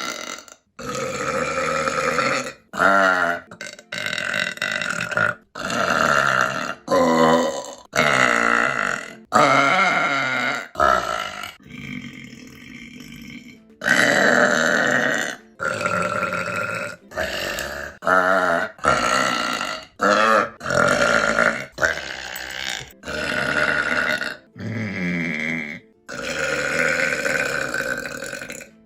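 A woman burping again and again: a run of separate burps cut back to back, some short and some drawn out for a second or two.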